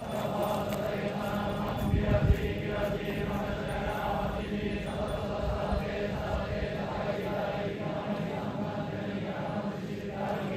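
A group of pilgrims chanting together in unison, a steady low drone broken by short pauses every second or so. There is a brief low thump about two seconds in.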